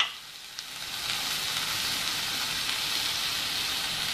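Chopped onion and garlic frying in oil in a nonstick pan: a steady sizzle, quieter for the first second and then even.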